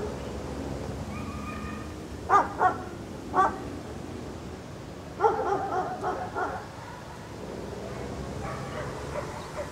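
Golden retriever barking and whining in play: a short whine about a second in, three quick barks between two and three and a half seconds, a run of yips around five to six seconds, and fainter whines near the end.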